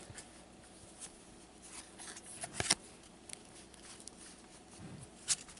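Hockey trading cards being handled by cotton-gloved hands: faint sliding and rustling, with short clicks of card against card and two sharper snaps, about halfway through and near the end.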